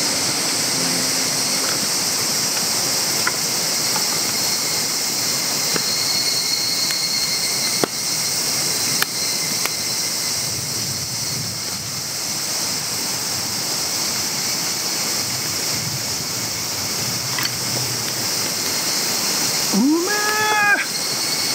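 Wood campfire burning in a fire pit, with a few sharp crackles and pops scattered over a steady high-pitched hiss of the surroundings. Near the end, a short rising vocal sound.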